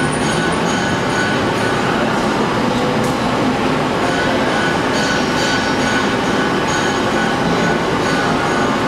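A metalworking machine running steadily, a continuous mechanical noise with a faint high whine in it.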